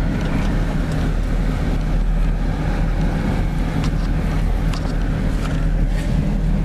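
Vehicle driving slowly on a rough dirt road, heard from inside the cabin with the window down: a steady low engine and tyre rumble with a few scattered knocks and rattles.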